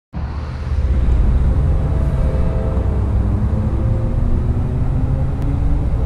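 Strong wind buffeting the microphone: a heavy, fluctuating low rumble, with a few faint tones sliding slowly down in pitch above it.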